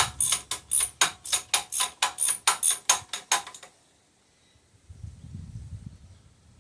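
Ratchet wrench clicking quickly and evenly, about five clicks a second, stopping a little before four seconds in; a faint low rumble follows near the end.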